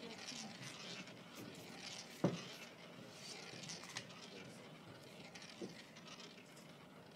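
Faint rolling patter of a roulette ball circling the track of a spinning roulette wheel, with a few soft clicks, the sharpest about two seconds in.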